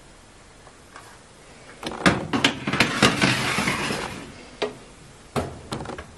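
Metal baking tray clattering and scraping as it is slid onto the oven's wire rack, then the oven door shutting with a sharp knock about a second before the end.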